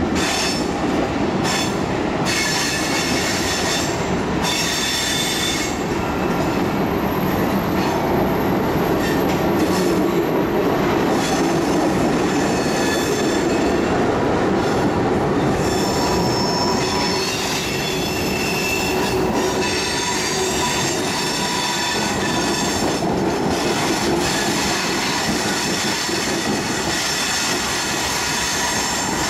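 Freight train cars rolling past: tank cars, boxcars and covered gondolas, with a steady rumble of wheels on rail and high wheel squeals that come and go.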